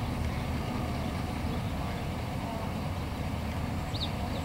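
Steady low rumble of an idling vehicle engine. Two short high chirps come about four seconds in.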